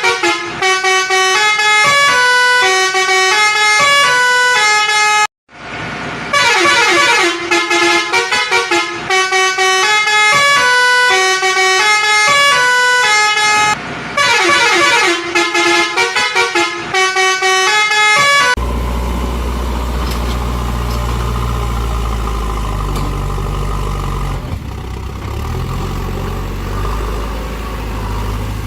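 A melody of quick stepping notes played in repeated phrases, broken by a brief cut about five seconds in. About two-thirds of the way through it gives way to a steady low engine-like rumble.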